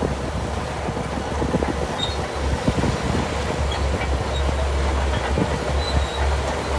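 Shantui DH17C2 bulldozer working: its diesel engine gives a steady low rumble, with an irregular clatter of its steel tracks.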